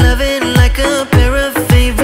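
Background pop music with a steady beat: deep kick drums falling in pitch about twice a second under a wavering melody.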